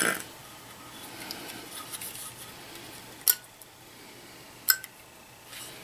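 Clicks and light scraping of a Stellant injector head's LED circuit board being worked loose and lifted off by hand: a sharp click at the start, another about three seconds in and one near the end, with faint ticks between.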